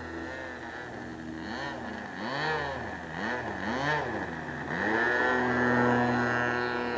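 Radio-controlled model plane's motor running in flight, its pitch swinging up and down several times as the plane passes and turns, then holding steady and louder before cutting off abruptly.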